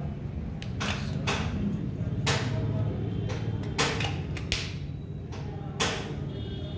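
Irregular clicks and knocks from a cordless drill being handled and tried, over a low steady hum. The drill's motor does not run, which the owner guesses is down to a flat battery.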